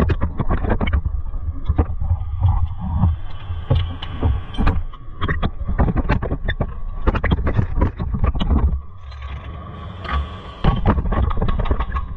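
A run of irregular knocks and clatters over a low rumble, loud and uneven throughout.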